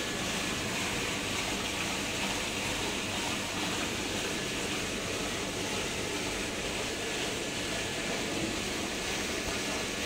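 Water rushing steadily through a YCM-02 combi drum filter for koi ponds during a flow test, a constant even wash of noise with a faint high steady whine under it.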